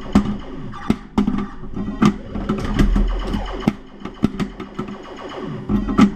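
Stern Stargazer pinball machine in play: irregular sharp clacks from its coils, flippers and the ball striking parts of the playfield, over the machine's steady electronic tones and a low hum.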